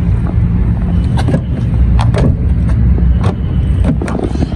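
A car being shut and locked: a few sharp clicks and knocks over a steady low rumble.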